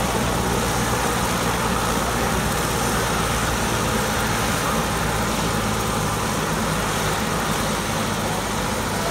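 Helicopter idling on the pad, its engine running steadily and its main rotor turning slowly: a constant drone with a low hum that does not change.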